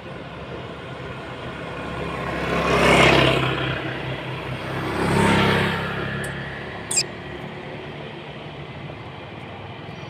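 Two motor vehicles passing close by on the road, one after the other: each engine and tyre noise swells and fades, the first peaking about three seconds in and the second about five seconds in. A brief sharp high sound follows about seven seconds in.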